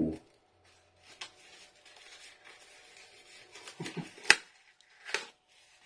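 Cardboard chocolate box and paper wrapper being handled as a wrapped bar is slid out: soft rustling of card and paper, with a sharp click a little over four seconds in and a smaller snap about a second later.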